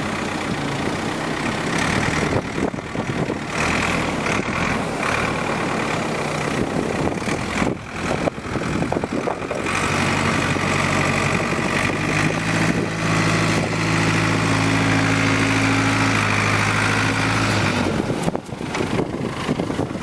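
1990 Ford 555C backhoe's Ford industrial diesel engine running as the machine drives and maneuvers with its loader bucket. The engine note grows louder and steadier about halfway through, then drops away near the end.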